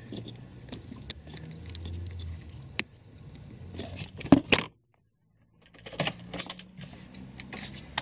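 Plastic clicks and rustling as a Subaru's green test connectors are handled and plugged together under the dashboard, with some jingling of keys, over the low steady hum of the heater blower. The sound cuts out completely for about a second midway.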